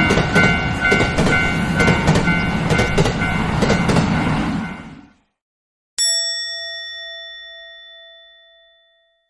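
Japanese railroad-crossing warning bell clanging while a train rushes past, its rumble and wheel clatter cutting off suddenly about five seconds in. After a moment of silence a single bell-like ding is struck once and rings out slowly.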